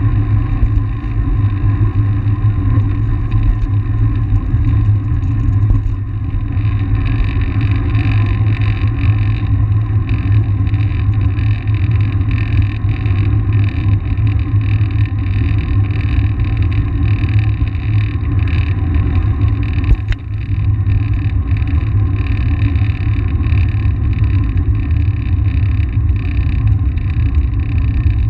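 Wind rumbling steadily on the microphone of an action camera on a moving bicycle, with the bike's rolling noise under it and a single sharp knock about twenty seconds in.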